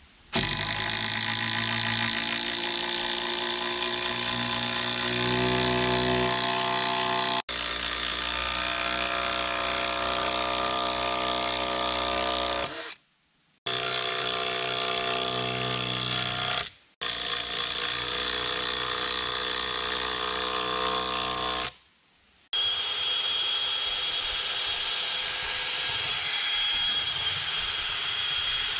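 Power drill driving long screws into timber deck boards, the motor labouring and its pitch shifting as each screw goes in, with a few short breaks between runs. Over the last several seconds a steadier, hissing machine sound with a high whine takes over.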